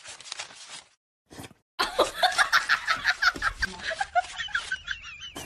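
Someone laughing in quick rhythmic bursts, over the rapid papery flutter of a wad of banknotes being riffled. A high wavering whine comes near the end.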